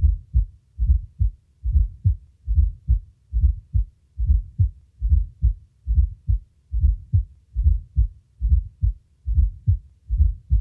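Heart sounds with a fourth heart sound (S4, atrial gallop): in each beat a low, dull extra sound comes just before the first heart sound, then the second heart sound follows. The sounds are low thuds in a steady rhythm of about seventy beats a minute.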